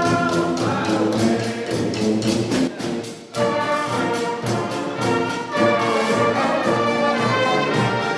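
A brass street band playing second-line music: trumpets and trombones over a steady beat, with a short break about three seconds in before the horns come back.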